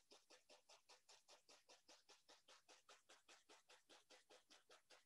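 Faint, rapid, even tapping of a paintbrush dabbed against a stretched canvas, about six or seven taps a second, working liquid white into wet oil paint to mist the base of the trees.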